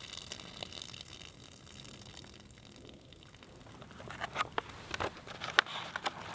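Food packaging crinkling and utensils clicking and tapping as a camp meal of noodles and tuna is handled. A faint steady hiss runs through the first few seconds, and a cluster of sharp clicks and taps comes in the last two seconds.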